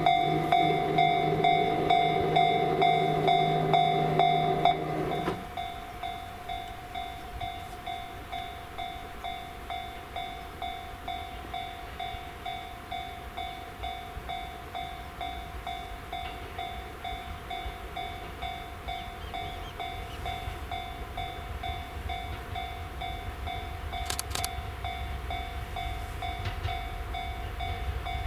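Japanese level-crossing warning bell ringing, a steady pulsing electronic tone about one and a half strokes a second. A train's low pitched hum sounds under it for the first five seconds, then stops, and a low rumble builds near the end.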